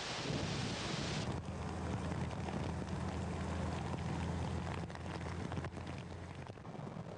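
Rushing floodwater hiss that cuts off abruptly about a second in, followed by the steady low hum of a vehicle engine running under a fainter hiss.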